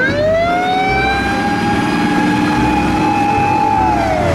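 Japanese fire engine's siren winding up into a long steady wail and sliding back down near the end, over the low rumble of the truck.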